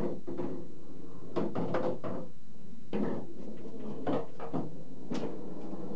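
Pool balls clacking: the cue striking the cue ball, then a scattered series of sharp knocks as balls hit each other and the cushions, over steady background noise.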